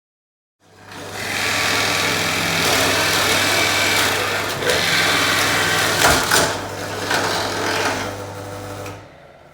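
Pillar drill (drill press) running with a steady electric motor hum while its bit bores into timber to clear the waste for a curved cut, the cutting noise rising and falling as the bit is fed in. It starts abruptly about a second in and stops shortly before the end.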